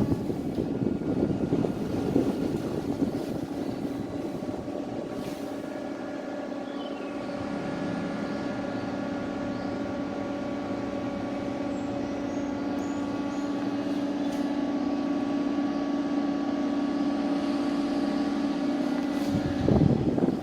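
Daikin FT25BXV14 split air conditioner running, a steady hum with several held tones over an airy rush.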